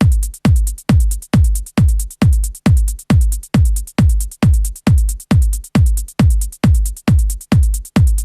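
Trance track intro with only a four-on-the-floor electronic kick drum, an even thump about 140 times a minute, each beat carrying a short high tick.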